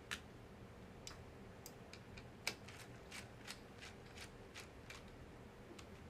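Faint, irregular clicks and ticks of a small screwdriver working on the tiny fan screws inside a MacBook Pro, metal on metal: about a dozen sharp ticks, the loudest about two and a half seconds in.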